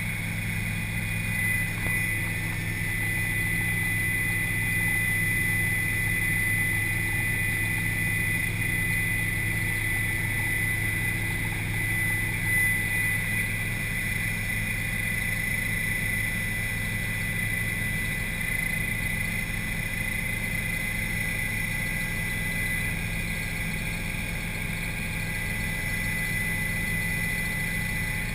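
Helicopter engine and rotor running steadily in flight, heard inside the cabin: a constant low drone with a high, steady whine over it.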